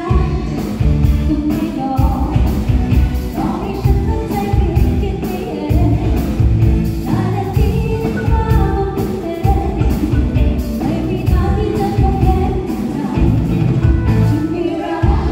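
Live band playing a song with a singer, over a steady drum beat and heavy bass.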